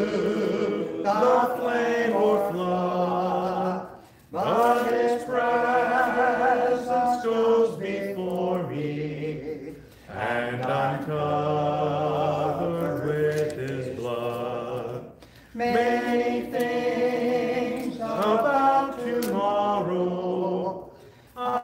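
Congregation singing a hymn in long sung phrases, with short pauses for breath about four, ten and fifteen seconds in.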